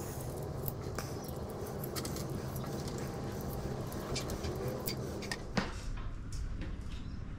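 Light metal clicks and clinks from a steel I-beam trolley and its threaded rod being handled and fitted together on a wooden workbench, with one sharper click about five and a half seconds in, over a steady low hum.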